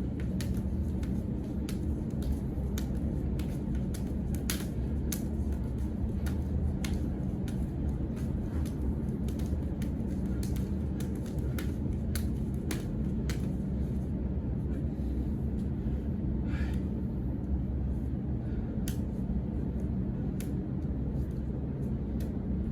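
Irregular sharp slaps and clicks of hands and arms making contact in a partner hand drill, over a steady low rumble; the slaps thin out and stop a little past halfway.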